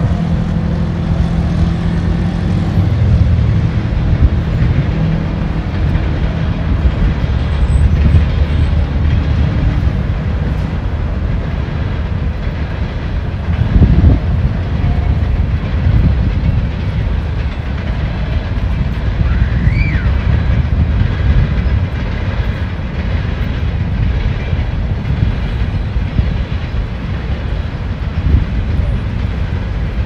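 Steady rumble of road traffic on the nearby road, with a heavy truck's engine droning through the first few seconds and a louder vehicle passing about 14 seconds in.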